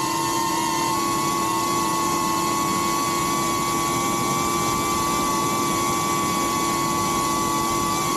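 DJI Avata 2 FPV drone's motors and propellers whining at a steady pitch, several tones sounding together over a rushing hiss.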